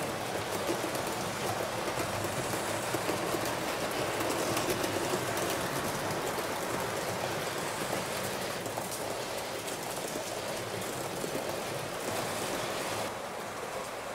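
Model train running along the layout track: a steady rolling rattle of the wheels on the rails, falling a little in level near the end.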